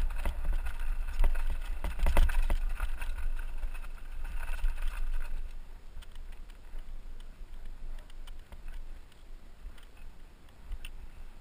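Bicycle rolling fast down a loose gravel trail: wind rumbling on the camera's microphone, tyres crunching over stones and the bike rattling over the bumps. The noise dies down about halfway through as the bike slows.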